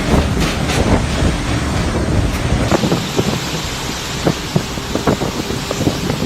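Storm winds blowing hard against the microphone in a steady rush, with many scattered short knocks and clatters throughout.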